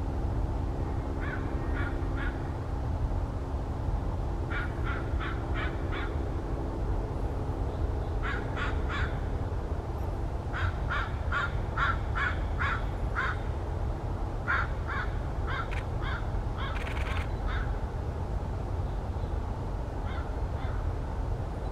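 A bird calling in repeated bouts of short notes, three to eight at a time and a few a second, over a steady low background rumble. A low hum fades out about halfway through.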